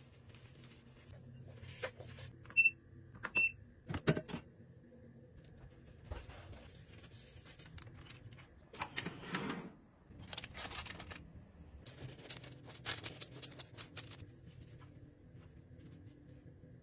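Kitchen handling sounds during bread making: scattered taps and clicks, two short electronic beeps from a kitchen appliance a few seconds in, and bursts of rustling from the baking paper as the dough is handled, around the middle and again later.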